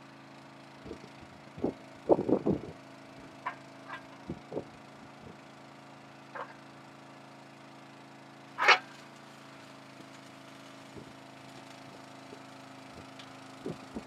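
Steady hum of a hydraulic pump running while the drive cylinder pushes a steel push-pier tube into the ground, with scattered knocks and clanks from the rig. A cluster of knocks about two seconds in and a sharp clank near the nine-second mark are the loudest.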